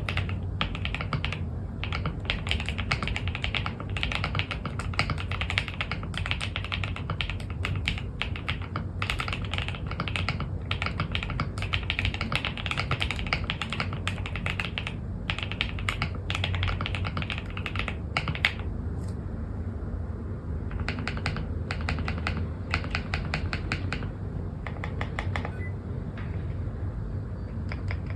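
Typing on a computer keyboard in a sound test: fast, continuous keystrokes, a short pause about two-thirds of the way through, another burst of typing, then sparser, fainter keystrokes near the end.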